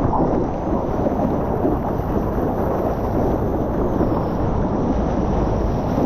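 Wind buffeting a GoPro's microphone out in the surf, a steady, dense low rumble with no let-up.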